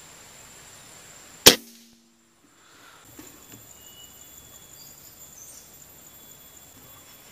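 A single sharp air-rifle shot about a second and a half in, the loudest thing by far, cut off abruptly into about a second of silence. Afterwards a faint steady outdoor background with a thin high steady tone resumes.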